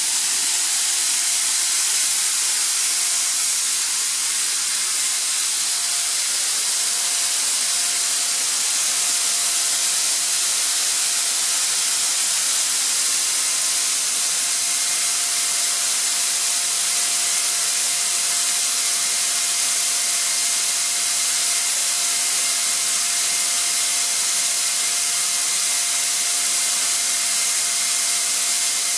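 Atlas Copco ZR 250 oil-free rotary screw air compressor running: a steady, loud hiss with a faint steady whine that comes in about six seconds in.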